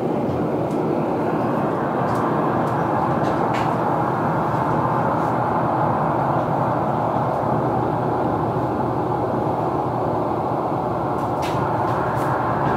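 Live electronic noise music: a dense, steady wash of rumbling noise, strongest in the low and middle range, with a few faint high clicks on top.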